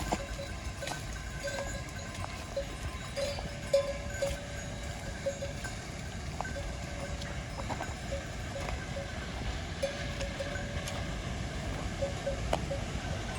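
Bells on grazing livestock clinking irregularly, a few small rings each second at the same pitch, over a steady low outdoor rumble.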